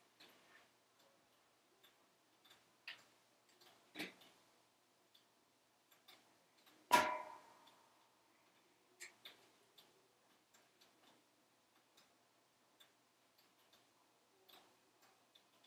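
Logs burning in a wood stove: faint, scattered crackles and pops a second or more apart, with one sharper crack about seven seconds in that rings briefly.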